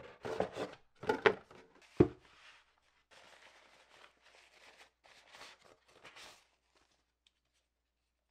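Cardboard box and molded-pulp insert being handled, crackling and knocking, with a sharp thump about two seconds in; then softer rustling as a soft white wrapping is peeled off the camera body.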